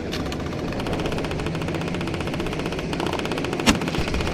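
A single sharp rifle shot from a British .303 Lee-Enfield about three and a half seconds in, over a steady, fast, even rattle that runs through the whole stretch.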